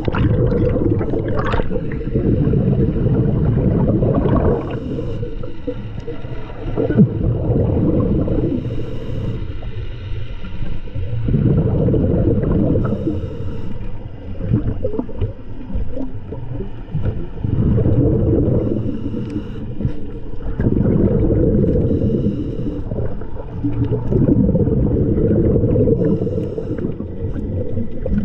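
Underwater recording of a scuba diver's breathing: rumbling spells of exhaled bubbles from the regulator that come and go every few seconds.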